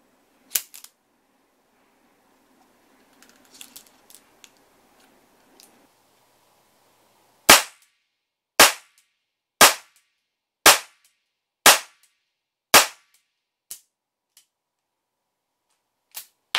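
HWS Type 26 model-gun revolver firing caps: six sharp cap reports about a second apart, its double-action-only trigger pulled for each, then a much fainter click as the hammer falls on a spent chamber. Before the shots, a sharp metallic click and a few light clicks of the gun being handled.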